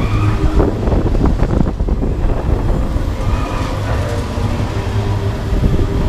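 Okamoto Monster amusement ride in motion, heard from aboard a spinning gondola: a steady low mechanical rumble from its hydraulically driven arms, with a run of knocks and rattles between about half a second and two seconds in.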